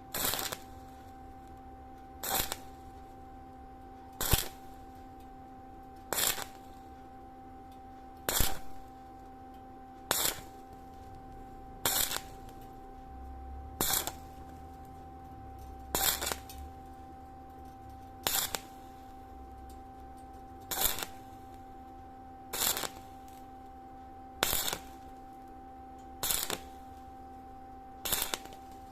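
Welding arc crackling in short bursts about every two seconds, one short tack or stitch weld at a time on thin sheet metal, over a steady electrical hum.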